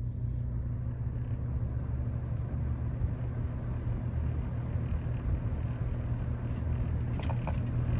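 Vintage Galaxy box fan running on low speed, having just spun up: a steady motor hum under the even rush of air from the blades, with a few faint clicks near the end.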